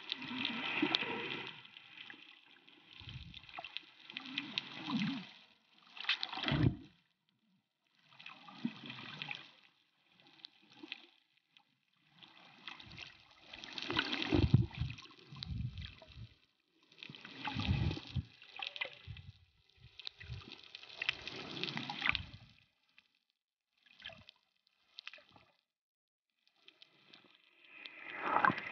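Water noise around a waterproof compact camera held underwater, coming in irregular surges a second to a few seconds long with short near-silent gaps between them.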